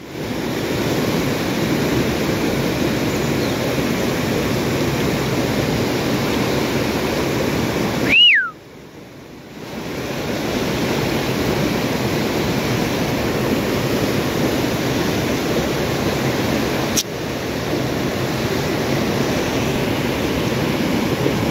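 Steady rush of river water. About eight seconds in, a short high sound falls in pitch, and the rush briefly drops out.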